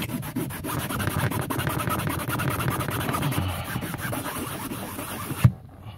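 Microfiber cloth scrubbing hard back and forth on a semi truck cab's fabric headliner to rub out a pen-ink stain, a close, steady rubbing. It stops with a sharp knock about five and a half seconds in.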